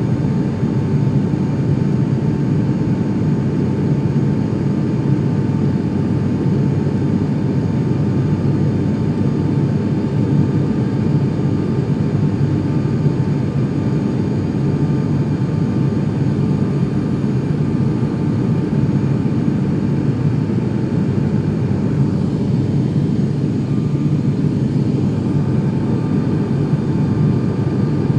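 Turboprop airliner's engine and propeller heard from inside the cabin while climbing out after takeoff: a loud, steady low drone with a constant thin whine above it.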